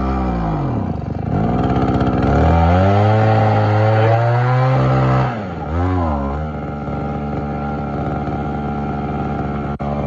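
Mitsubishi TB26 26 cc two-stroke brush-cutter engine revved on the throttle: one long high rev of about three seconds and a short blip, then it settles back to a steady idle.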